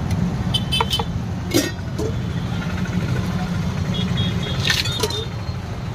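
Steady low rumble of passing road traffic, with scattered sharp clicks and knocks and a few brief high tones.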